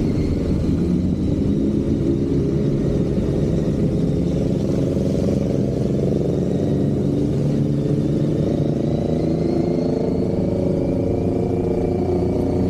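Kawasaki Z900 SE's inline-four engine running steadily while riding, its pitch drifting slowly up and down with the throttle.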